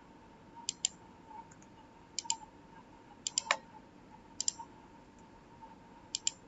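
Computer mouse buttons clicking, mostly in quick pairs, five times spread over several seconds, with a faint steady tone underneath.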